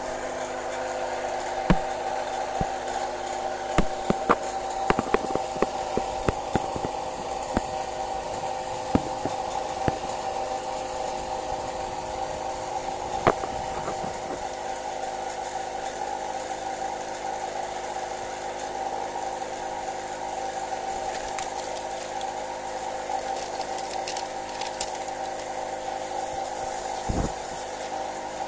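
Refrigerator compressor reused as a 12 V DIY air compressor, running with a steady hum. Sharp clicks and knocks come now and then, most in the first half, with a dull thud near the end.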